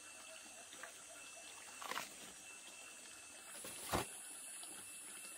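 Banana leaves rustling as they are handled and folded, with a brief crackle about two seconds in and a sharp knock about four seconds in.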